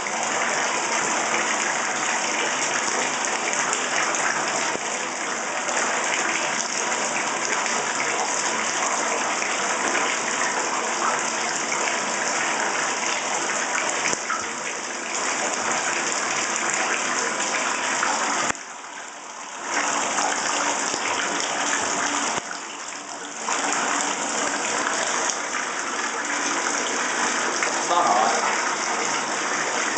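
Water running steadily into a bathtub during a dog's bath, dropping away briefly twice about two-thirds of the way through.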